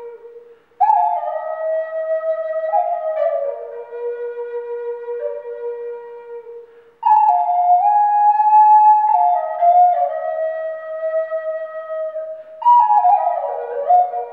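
Native American style flute (pimak) in B, carved from ash and tuned to a minor pentatonic scale, playing a slow melody of held notes. It comes in three phrases, each opening on a high note and stepping down, with short breath pauses about a second in and about seven seconds in.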